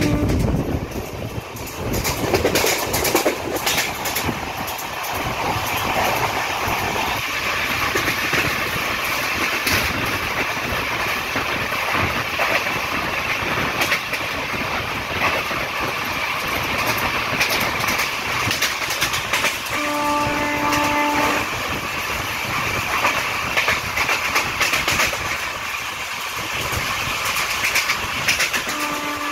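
Passenger train running fast on the rails, heard from an open coach window: a steady rushing of wind and wheels with many short clicks from the track. The train's horn sounds for about a second and a half near two-thirds of the way through, and starts again at the very end.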